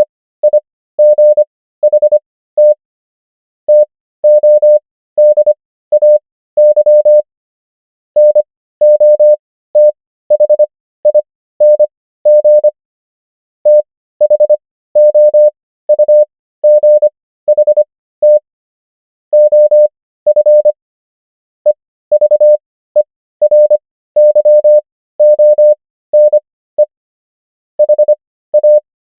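Morse code practice tone: a single steady mid-pitched beep keyed on and off in short dots and longer dashes. English words are sent at 25 words per minute character speed with Farnsworth spacing to 15 words per minute, so the quick clusters of beeps are separated by longer gaps.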